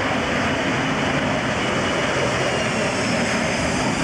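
Jet airliner's engines running on the runway: a steady rushing noise with a faint high whine.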